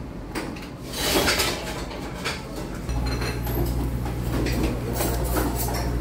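Restaurant dishes and cutlery clinking and clattering in scattered knocks. A steady low hum comes in about halfway through.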